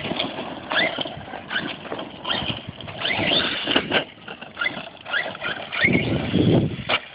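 Redcat Earthquake 8E electric RC truck driving, its brushless motor whining up in pitch again and again in short bursts of throttle. A louder low rumble comes in about six seconds in.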